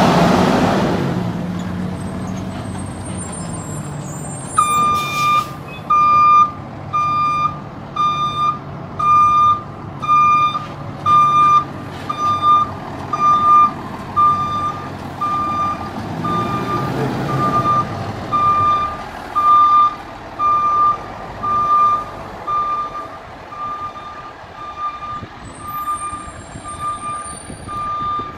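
Fire engine (2019 Rosenbauer Commander pumper) backing up: its diesel engine running loudly at first, then a back-up alarm beeping steadily at about three beeps every two seconds. A short hiss of air brakes about five seconds in as the beeping starts, and the engine swells briefly around two-thirds of the way through.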